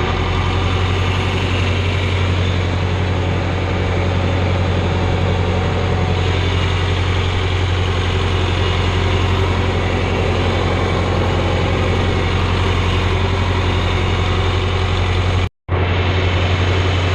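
John Deere 3010 tractor's four-cylinder engine running steadily with a deep, even hum. The sound drops out for a moment near the end.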